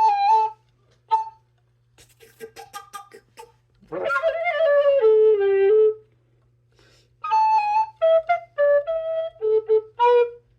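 Flute playing a short tune in separate notes, broken into phrases with pauses between them. It is a faltering attempt at the melody, with a note the player says she keeps missing. A steady low hum runs underneath.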